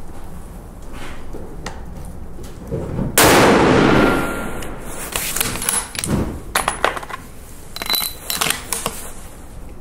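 A bolt-action F-Class rifle fires one shot about three seconds in, its report ringing on for most of a second. The rifle's bolt is then worked, giving short runs of sharp metallic clicks and clacks.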